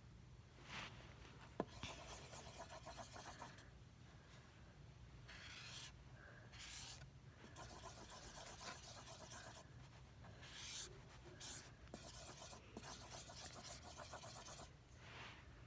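Pencil stirring and scraping through thick, partly dried soap in a container, in quick rubbing strokes that come in several spells, with a sharp click about a second and a half in.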